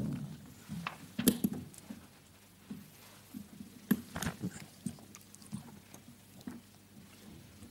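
Irregular knocks and footsteps on a wooden stage floor, with chairs and things on a table being moved as people sit down, the loudest knocks about a second in and again about four seconds in.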